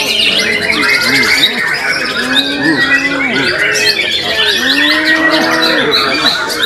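Many caged songbirds singing at once, white-rumped shamas among them, in a dense run of quick whistled notes. Under them, a string of low, drawn-out rising-and-falling hoots.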